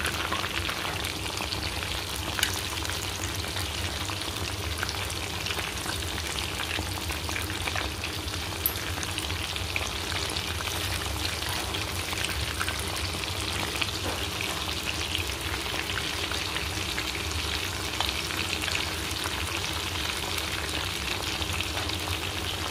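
Chicken pakoras deep-frying in hot oil in a karahi: a steady sizzle full of small crackles. A spoon is stirring and turning the pieces now and then, giving a few sharper ticks.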